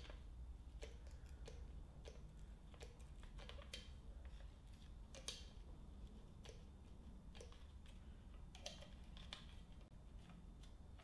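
Faint, irregular clicks from a hand pump oil can being worked, squirting oil onto a piston held in a piston ring compressor, over a low steady hum.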